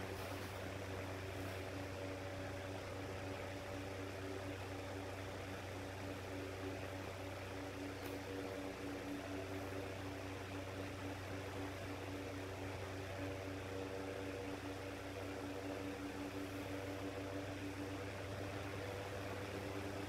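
Shinic 9-inch electric fan's motor humming steadily, a low hum with several fainter higher tones above it. The fan has no start capacitor, so from cold its motor is slow to come up to speed, taking about two minutes.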